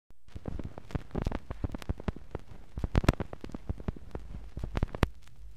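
Phonograph stylus on a 1958 Columbia stereo LP at the start of a track with no lead-in groove: a run of irregular crackles and pops that stops about five seconds in, leaving a steady low rumble and hiss.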